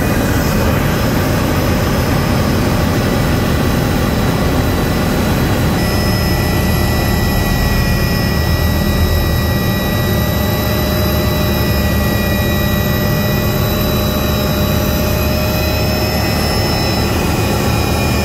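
Helicopter engine and rotor running steadily, heard from inside the cabin, with steady high whine tones that shift in pitch about six seconds in.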